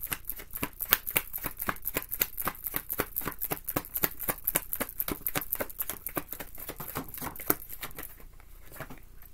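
A deck of oracle cards being shuffled by hand, overhand: a quick run of crisp card slaps at about five a second, thinning out near the end.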